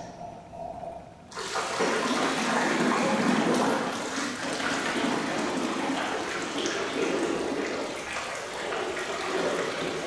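Running, splashing water that starts suddenly about a second in and goes on at a steady level.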